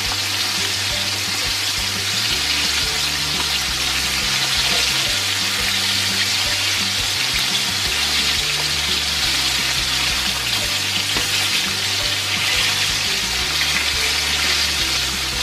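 Chicken pieces coated in egg and flour frying in hot oil in a pan, a steady, even sizzle.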